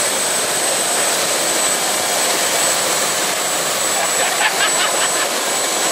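Steady rushing roar of a boat under way in strong wind, with wind and spray noise on the microphone and a thin high whine running through it.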